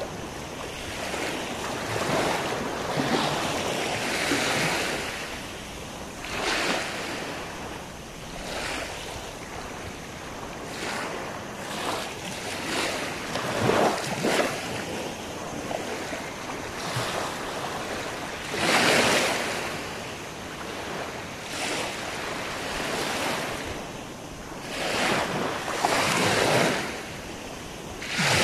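Small waves washing onto a sandy shore, swelling and fading every few seconds.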